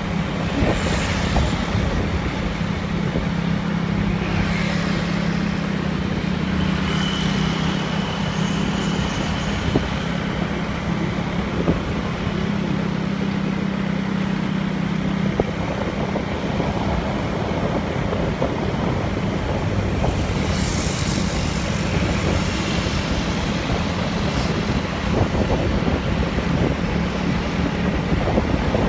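Steady engine hum with wind and road noise from a vehicle on the move, and a few brief whooshes along the way.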